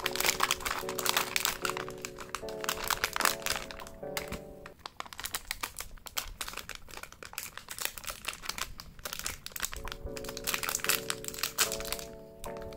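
Plastic snack-cake wrappers crinkling and crackling as they are handled and torn open. Background music plays with a repeating tune that drops out for several seconds in the middle.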